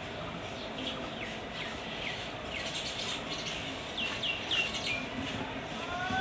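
Sparrows chirping: short, downward-sliding chirps come singly every half second or so, then three or four in quick succession about four seconds in, over a steady outdoor hiss.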